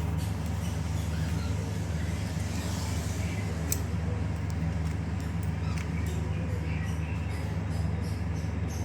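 A steady low mechanical drone, with a single sharp click about three and a half seconds in.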